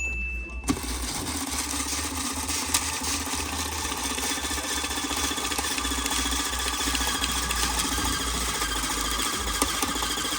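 An engine running steadily with a fine even pulse, after a short high steady tone in the first moment.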